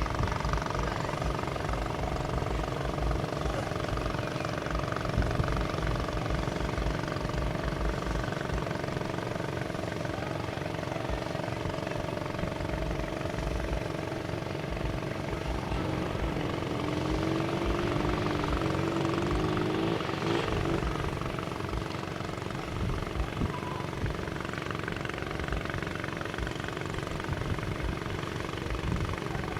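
Vehicle engine running steadily, with wind buffeting the microphone; about halfway through a wavering tone rises and falls for a few seconds.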